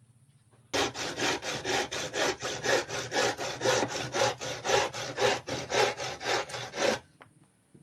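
A fine-toothed hand saw cutting wood in brisk, even strokes, about three to four a second. It starts about a second in and stops shortly before the end.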